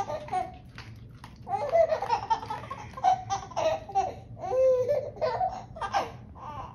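Baby laughing and babbling in a string of short high-pitched bursts, coming thick and fast from about a second and a half in.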